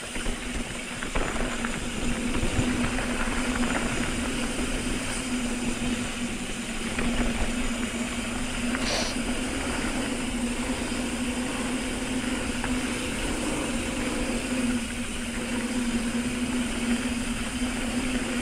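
Mountain bike running down a dirt trail: the rear hub's freewheel gives a steady buzz while the rider coasts, over the noise of tyres rolling on dirt and wind on the microphone.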